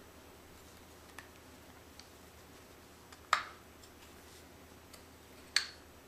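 A few sharp metallic clicks from a piston and connecting rod assembly being handled: one loud click a little past halfway and another near the end, with faint ticks between.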